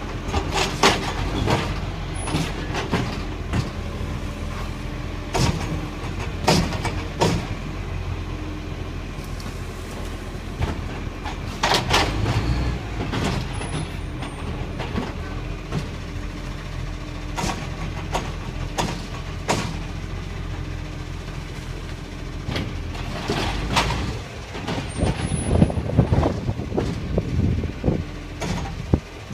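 Side-loading garbage truck's diesel engine running steadily as the truck creeps forward, with sharp clanks and knocks from its automated lifting arm and bins every few seconds. Near the end the arm's hydraulics swell louder as it lifts a wheelie bin up to tip it into the hopper.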